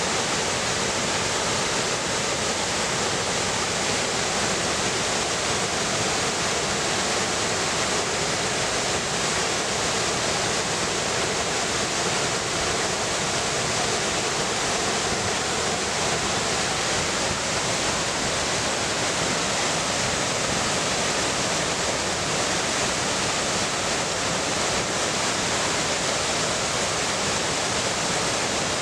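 Waterfall and rocky cascades: water pouring and splashing over rocks in a steady, unbroken rush.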